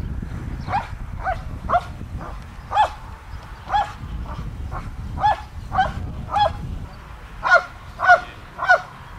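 Belgian Malinois barking repeatedly at a decoy cornered in a blind, about a dozen barks, one every half second to a second, with a short pause before the last three. This is the guarding bark of a ring-sport dog holding a found decoy.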